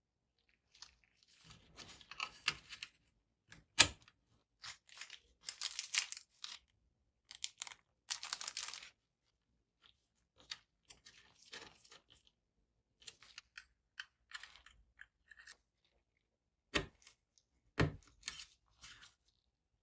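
Small hardware parts and their plastic packaging being handled by hand: bursts of crinkling and rustling broken by sharp clicks, with a loud click about four seconds in and a heavier knock near the end.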